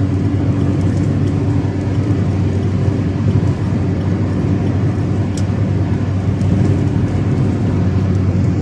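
Steady cabin noise of a car cruising at highway speed: a constant low drone of engine and tyres on the road.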